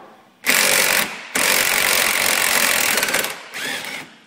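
Cordless impact driver hammering on the tie rod end nut of a golf cart's front steering, with an 18 mm socket from underneath while a 17 mm wrench holds the top: it loosens the nut to free the tie rod end from the spindle. A short burst about half a second in, then a longer run of about two seconds that winds down with a fading whine.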